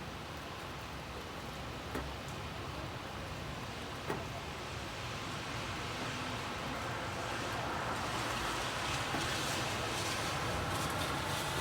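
Steady rain on a city street, with a car passing on the wet road, its tyre hiss swelling over the last few seconds. Two single sharp taps sound about two seconds apart in the first half.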